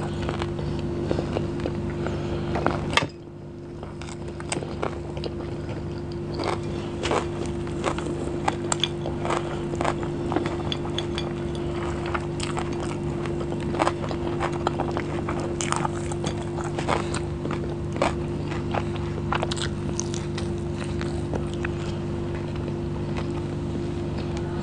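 Close-miked chewing of rice and chicken, with many small mouth clicks and smacks, over a steady low hum. About three seconds in, the sound drops briefly and abruptly.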